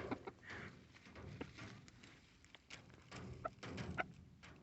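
Chickens clucking quietly, with scattered small clicks.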